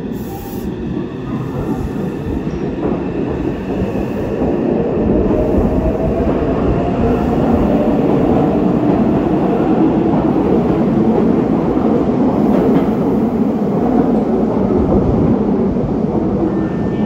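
Meitetsu 2000 series μSKY limited-express train pulling out of an underground platform on an out-of-service run. Its wheels and running gear rumble louder as it gathers speed and its cars pass close by, with a faint rising motor whine in the middle.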